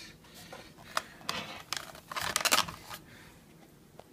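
Cardboard box and foam packing being handled as a microphone in its foam insert is pulled out of the box: a few light clicks and knocks, then a brief scraping rub about two seconds in.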